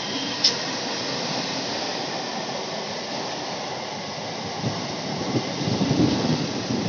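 Coaches of an electric multiple-unit (EMU) local train rolling past, a steady rushing rumble with a short sharp click about half a second in. Irregular wheel knocks over the rail joints build up from about five seconds in.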